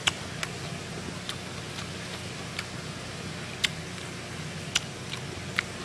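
A person chewing a mouthful of raw fish wrapped in a perilla leaf with green chili: about seven scattered sharp crunchy clicks at uneven spacing, over a steady low hum.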